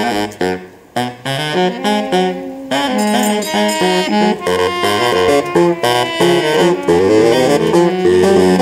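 Baritone saxophones playing together in layered parts. The first second is short, clipped notes; after that come longer overlapping lines over a low bass part.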